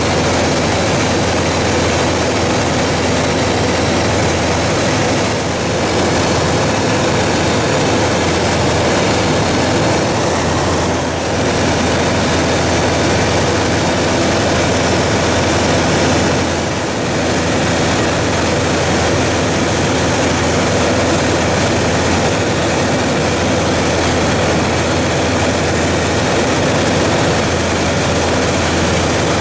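Light propeller aircraft in flight, heard from inside the cockpit: the steady drone of its engine and propeller over a constant rush of air.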